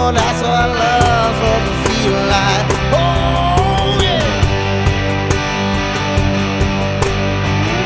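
Live rock band playing an instrumental break: distorted electric guitar chords and drums, with a lead guitar line of bending, gliding notes over the first half.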